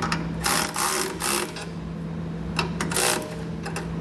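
Cordless electric ratchet running in several short bursts, about a second apart, as it runs flange nuts down onto the bracket bolts.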